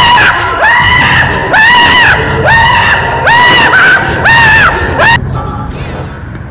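A person screaming loudly: a rapid run of about six high-pitched screams, each rising then falling, roughly one a second, cut off suddenly about five seconds in.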